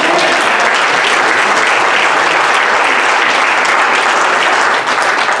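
Church congregation applauding: dense, steady clapping that starts all at once and begins to thin out near the end.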